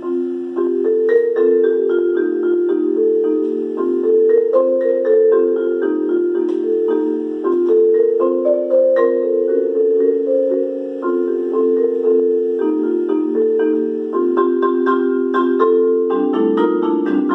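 Marimba played with four mallets: sustained, rolled chords that move slowly from one chord to the next. A lower note joins the chord near the end.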